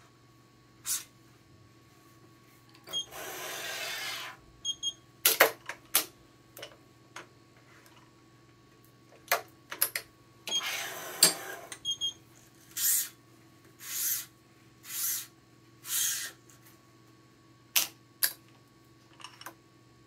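Badminton racket stringing on an electronic stringing machine: sharp clicks and clacks of the clamps and machine parts, with the rasp of string being drawn through the racket's frame and strings. Two longer rasps come early and near the middle, then four short swishes about a second apart.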